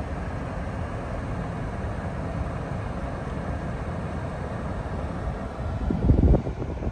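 Steady low rumble of a Toyota Land Cruiser 300 on the move, road and running noise, with a short, louder low thump about six seconds in.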